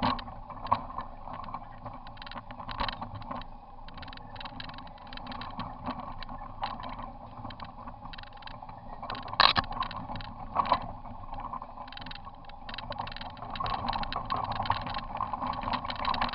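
Polaris RZR side-by-side engine running as it drives over rough, leaf-covered ground, with frequent knocks and rattles from the machine jolting over the terrain; two louder knocks come about nine and a half and ten and a half seconds in.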